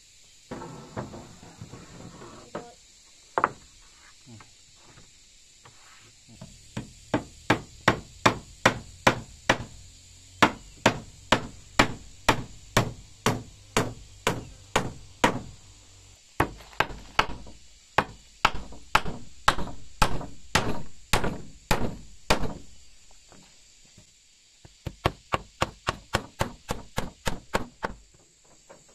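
Hammer nailing wooden floorboards: a few scattered knocks at first, then long runs of steady blows about two to three a second, with short pauses between nails and a quicker run near the end.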